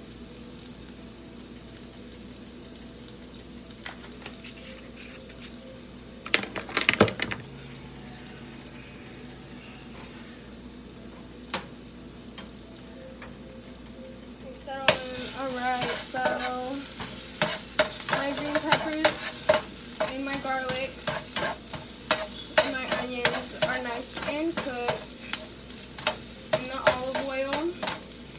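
Corn and cherry tomatoes frying in olive oil in a skillet, sizzling while a utensil stirs them, scraping and clicking against the pan. The sizzle is faint at first, with a brief rattle about 7 seconds in. It turns much louder about halfway through, when the busy stirring begins.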